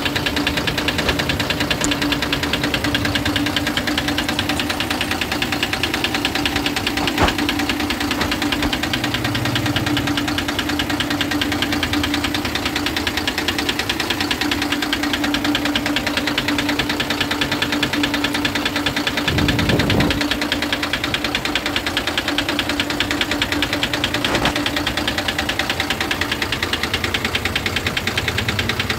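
Eicher Jumbo 20.16 truck's diesel engine running steadily with a rapid metallic knock. The knock comes from a broken inlet valve seat in cylinder 3: the seat has broken, the inlet valve has dropped, and seat fragments on the piston are striking the valve, which also makes the engine misfire. A short low thump comes about twenty seconds in.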